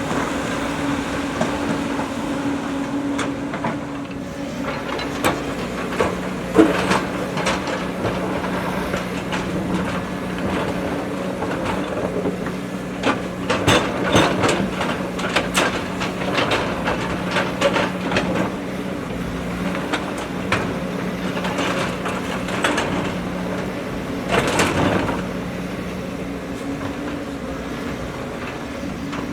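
JCB backhoe loader's diesel engine running steadily while working, its pitch dropping about six seconds in and rising again near the end. Frequent metallic clanks and knocks from the machine's arm and bucket come over it, thickest in the middle, with a loud cluster of clanks near the end.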